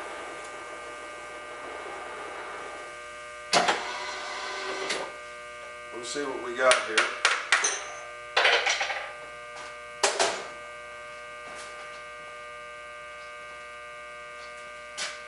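Horizontal boring mill running with a steady multi-tone hum, a rushing noise in the first three seconds, then a series of sharp metallic knocks and clatter from the tooling and machine being handled after the boring pass.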